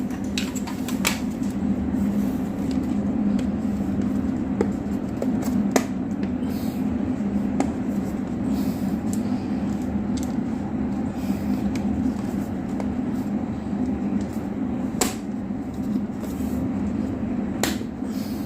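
A steady low hum, with scattered sharp clicks and taps from handling the 3-pin socket and its plug while it is being reconnected.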